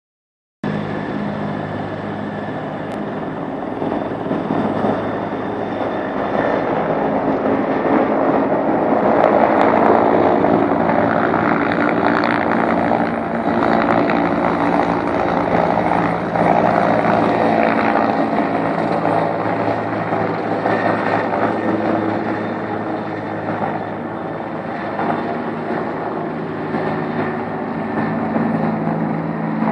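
Helicopter hovering overhead: a steady, loud rotor and engine noise with a low hum underneath, swelling slightly in the middle.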